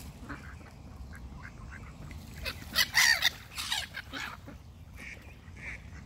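Mallard ducks quacking in short calls, with a louder run of harsh calls about three seconds in.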